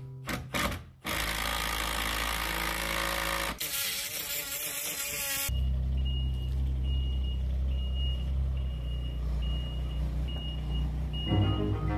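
A Kubota mini excavator's diesel engine running steadily as it tracks off a trailer, its travel alarm beeping at about one and a half beeps a second. This is preceded by a few seconds of loud rushing noise, and music comes in near the end.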